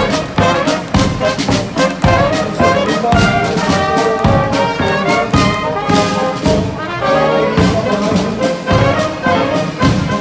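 Brass band playing a march, trumpets and trombones over a steady drum beat.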